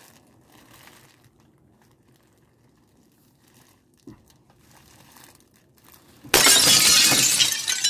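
Faint rustling of fabric and packaging being handled. About six seconds in, a sudden loud, harsh noise starts and keeps going.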